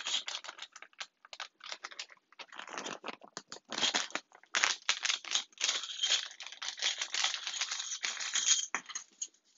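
Clear plastic bag crinkling and rustling as it is handled and opened, with small hard plastic game pieces clicking and rattling against each other inside it. The crackling is busiest from about the middle of the stretch onward.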